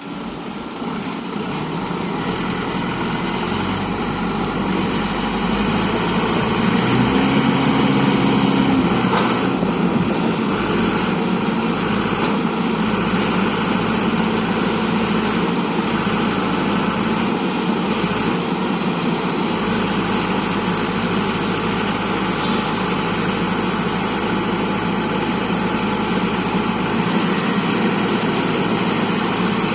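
Skid steer loader's engine running steadily, building up over the first few seconds and then holding level.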